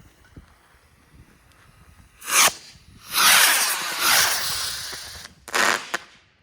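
Several small fireworks rockets launching in turn, each a loud rushing hiss. A short one comes about two seconds in, a longer one runs for about two seconds from three seconds in and slowly fades, and another short one comes near the end.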